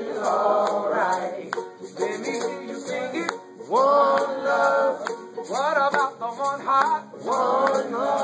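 Live acoustic band playing: ukuleles, acoustic guitar and banjo strummed in a steady rhythm while several men sing together, holding some notes for about a second.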